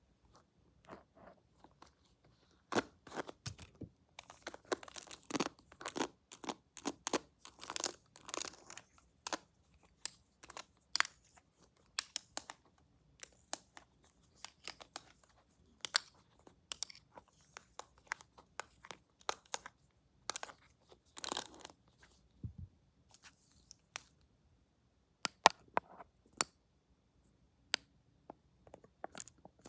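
Close-miked handling sounds: irregular crackles, taps and crinkles that come in clusters with short pauses, and one dull low thump about two-thirds of the way through.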